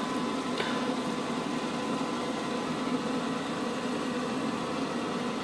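Steady background room hum with an even hiss, with no distinct events.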